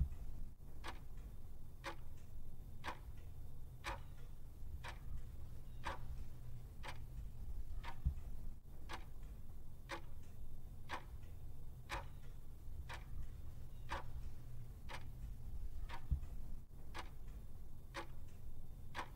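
A clock ticking steadily, about one tick a second, over a low steady hum. A soft low thud comes about eight seconds in and again about eight seconds later.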